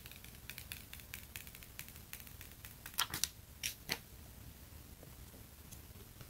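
Faint, rapid crackling and ticking of the thin factory plastic film being peeled off an iPhone XS Max's screen, followed about three seconds in by a handful of louder sharp clicks.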